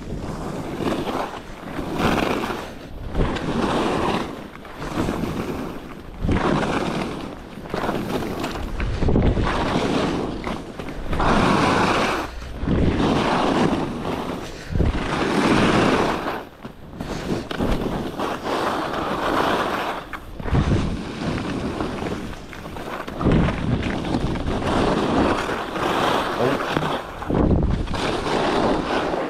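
Skis carving and scraping across snow turn after turn, a rushing noise that swells and fades every couple of seconds, with wind rushing over the microphone.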